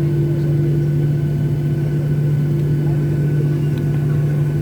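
Steady engine drone and hum inside the cabin of a Boeing 737 on the ground after landing, with a low steady hum and a fainter high whine.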